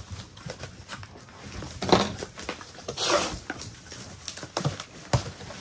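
Styrofoam packing peanuts rustling and cardboard boxes being handled as hands dig through them, with scattered light knocks and a louder rustle about three seconds in.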